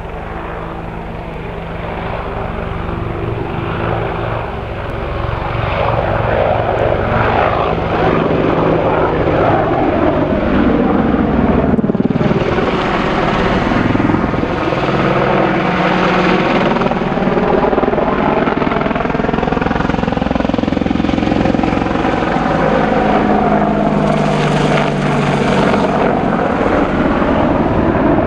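AH-64 Apache attack helicopter in flight: rotor and twin turbine engines. The sound swells over the first several seconds as it comes closer. It then stays loud with a sweeping, phasing whoosh as it passes high above.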